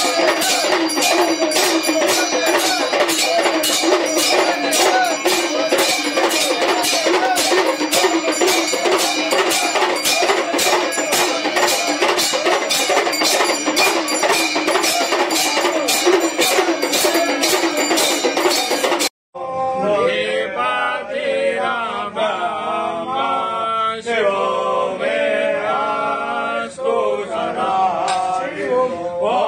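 Hindu temple aarti music: drums and bells keep a steady rapid beat under a chanting voice. About two-thirds of the way in it cuts off abruptly and is replaced by a duller-sounding recording of voices chanting a Shiva hymn.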